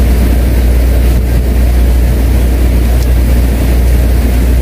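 A boat engine running steadily, a deep, unbroken low rumble.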